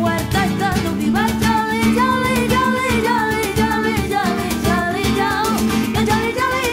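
Music: a song with guitar and a singing voice over a steady beat.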